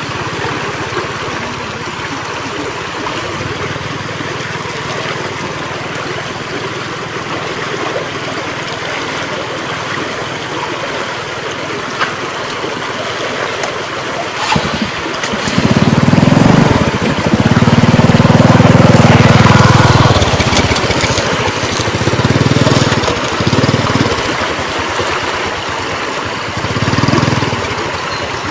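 Running floodwater rushing steadily, with several loud low rumbles coming and going from about halfway through.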